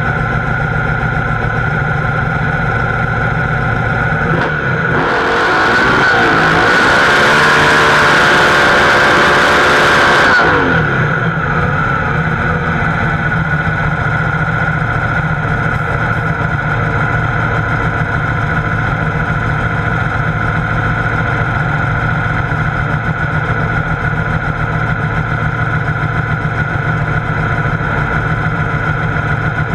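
Pro Mod Camaro drag car's V8 engine heard from inside the cockpit, idling. About five seconds in it goes to high revs for about six seconds with the rear tyres spinning in a burnout, then drops back to a steady idle.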